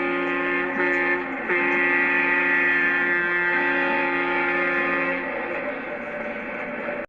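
Leslie A200 two-chime locomotive air horn blowing one long, steady chord. There is a short dip about a second in, and the horn eases slightly in level near the end before cutting off abruptly.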